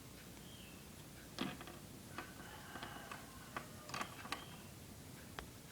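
Faint, irregular light clicks and taps as mechanical pencils are handled, about six in all.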